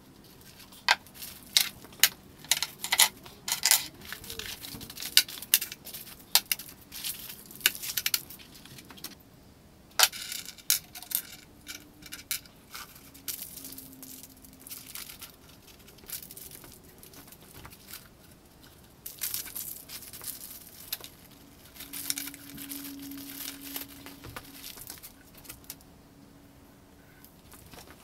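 Small metal parts and screws of a desktop CNC kit clinking and clattering on a wooden workbench as they are unpacked, with a loud knock about ten seconds in and plastic parts bags crinkling and tearing later on.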